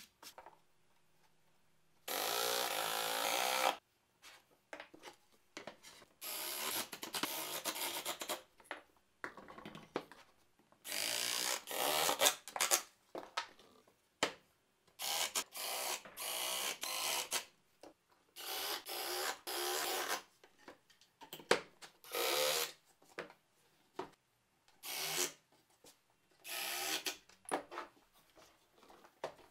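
Compact cordless drill-driver driving screws through steel hinges into plywood, in about ten short runs of a second or two each, with knocks of boards and parts being handled between them.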